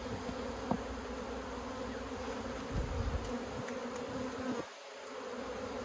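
Honeybees humming steadily around an open hive, the buzz of a large, busy colony; the hum dips briefly near the end.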